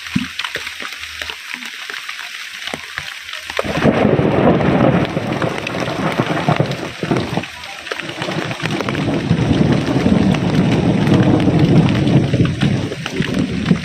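Heavy rain falling, joined about three and a half seconds in by a loud, low thunder rumble that rolls on, eases briefly midway, then swells again before cutting off near the end.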